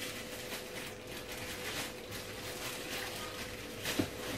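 Faint kitchen handling noises: light rustles and a soft knock about four seconds in, over a steady faint hum.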